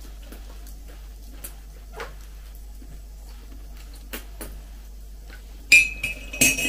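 Faint spoon clicks, then near the end a metal spoon strikes a ceramic mug twice, each a short ringing clink.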